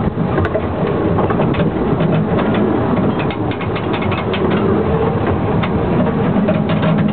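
Narrow-gauge light railway train running: a steady rumble with frequent clicks and rattles.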